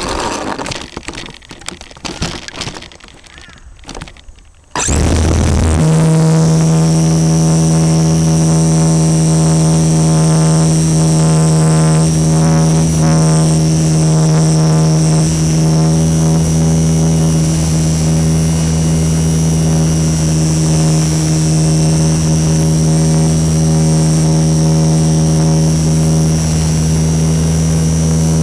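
Uneven rustling and knocks, then about five seconds in an RC Super Cub model plane's motor and propeller start abruptly and run at a steady, loud, high-pitched buzz with a thin whine on top, picked up on board. The owner reports lots of vibration on this flight.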